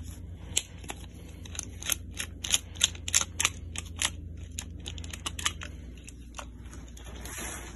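Flathead screwdriver backing out the terminal screws of a 30 amp double pole circuit breaker: a quick, irregular run of light clicks, several a second, that thins out after about five and a half seconds. A steady low hum lies under it.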